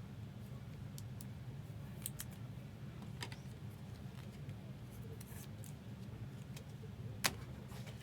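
Trading cards being handled: scattered light clicks and ticks, with one sharper click about seven seconds in, over a steady low hum.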